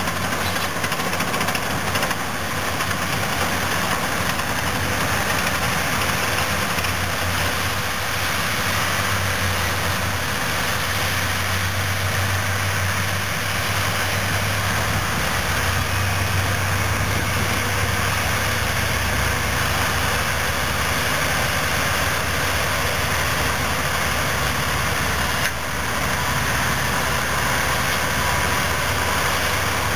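Caterpillar D10N bulldozer with its C27 V12 diesel and a Caterpillar 651B wheel tractor-scraper running hard while the dozer push-loads the scraper: a steady, loud heavy-diesel drone whose low note rises and falls a little in the middle.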